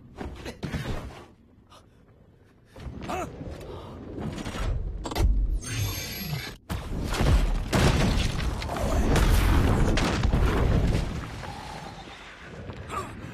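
Film trailer sound effects: scattered hits and whooshes, then heavy booms, crashes and a deep rumble that swell from about four seconds in. A brief dead stop breaks them around the middle, and they die down near the end.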